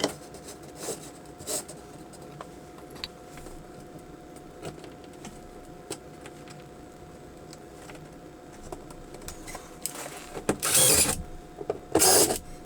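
Small parts and screws clicking and rattling as hardware is handled, then near the end two short bursts of a cordless drill running to drive screws into the hammock's wooden panel.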